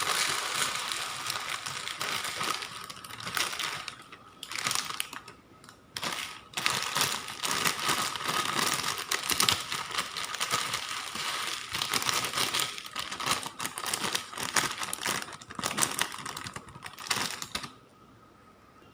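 A plastic packet crinkling and dry rice sevai (rice vermicelli) crackling as it is handled and measured out. The crackles come thick and irregular, with a couple of short lulls, and stop about a second before the end.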